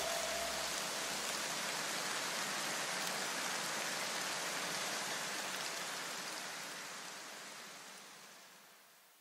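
Aircraft paint stripper fizzing and crackling as it lifts paint off an engine valve cover: a steady hiss that fades away near the end.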